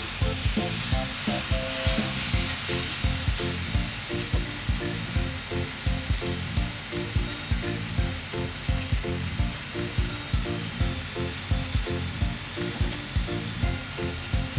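Chicken drumettes sizzling in hot oil in an enamelled cast-iron Staub pan, with tongs turning the pieces near the start. Background music with a steady beat plays over the sizzle throughout.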